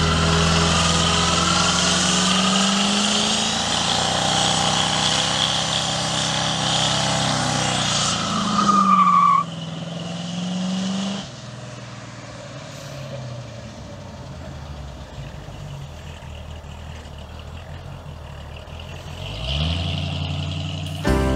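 Cammed 355 small-block V8 in a 1983 Chevrolet C10 revving hard during a burnout, the rear tire spinning and squealing, with a sharp rising rev about nine seconds in before it drops away. After a quieter stretch the engine revs climb again near the end.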